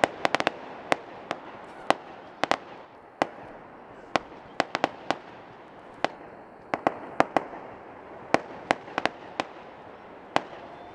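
Fireworks going off close by: a string of sharp bangs at irregular intervals, sometimes several in quick succession, over a steady crackling hiss.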